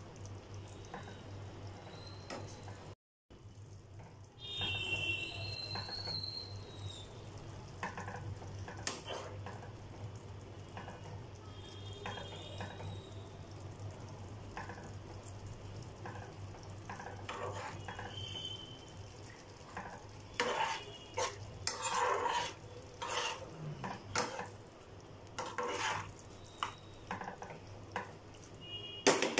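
Potato and pea curry simmering and lightly sizzling in a pan as a steel spoon stirs through it. Over the last third, several sharp clinks and taps of the spoon against the pan. A brief high squeal about five seconds in.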